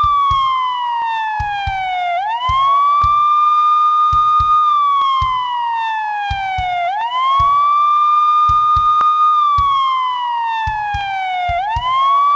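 Police siren in a slow wail: it holds a high tone for a couple of seconds, slides down in pitch over about two seconds, then swoops quickly back up, repeating about every four and a half seconds.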